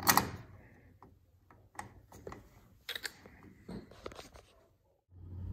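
Plastic seatback hanger clicking and knocking against its aluminium mounting bracket as it is handled into place: one sharp knock at the start, then scattered lighter clicks.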